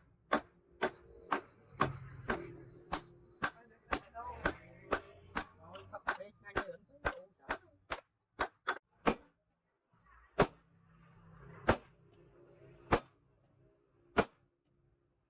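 Hand hammer striking a steel machete blank on an anvil while forging: sharp metallic blows about two a second, slowing after about nine seconds to single strikes a little over a second apart, several with a short high ring.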